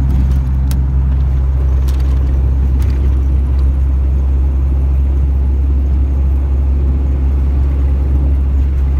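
Acura Integra engine idling steadily, a low even rumble, with a few faint clicks in the first few seconds.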